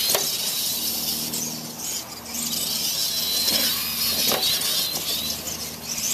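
Radio-controlled Clod Buster monster trucks racing, their electric motors making a high whine that wavers up and down with the throttle. A light knock comes about four seconds in, as a truck lands off a ramp.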